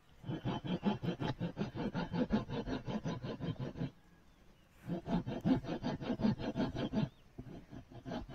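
A steel blade scraping along a wooden spade handle in quick, even strokes, about five a second, shaving the wood down. The scraping pauses about four seconds in, resumes for about two seconds, then trails off into a few scattered strokes.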